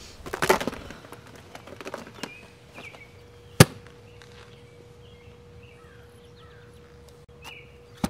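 Phones clattering in a black plastic lockbox, then the lid shut with one sharp clack a few seconds in. Birds chirp faintly behind.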